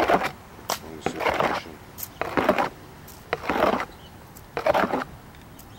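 A crow cawing five times, harsh calls about a second apart, with a few sharp clicks in between.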